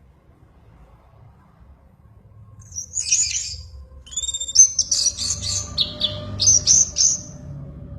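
Songbird singing: a short burst of high notes about three seconds in, then a fast run of high chirps and trills that stops shortly before the end.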